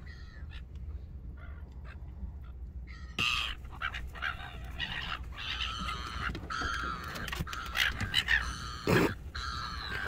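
A flock of silver gulls calling, many overlapping calls that start about three seconds in and keep going, over a low steady hum.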